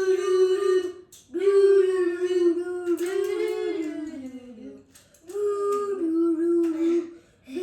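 Wordless singing: four long held notes with short breaths between, the third sliding down in pitch near the middle.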